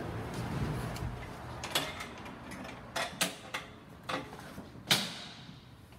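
A handful of light mechanical clicks and knocks, the sharpest about five seconds in, over a quiet steady background.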